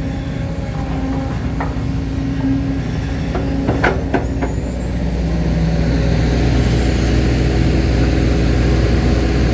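Excavator's diesel engine running steadily, working harder and louder from about halfway through, with a few sharp metal knocks near the middle.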